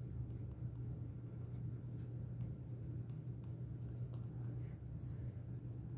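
Derwent Graphitint pencil writing on sketchbook paper: a soft, steady scratching of the lead across the page, with a steady low hum underneath.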